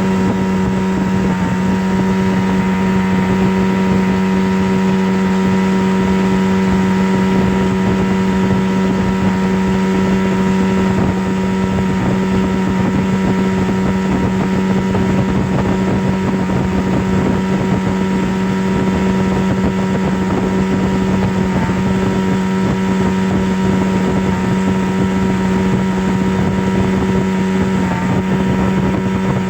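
A steady, unchanging drone: a strong low hum with fainter higher overtones over an even hiss, like a small motor running continuously.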